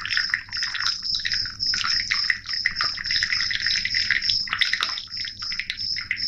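Hot onion kadha being poured through a mesh strainer into a glass, an irregular liquid splashing. A high, steady chirping pulses a few times a second behind it.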